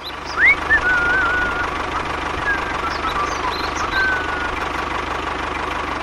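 Tractor engine running steadily with a rapid low knock. Birds chirp a few times over it.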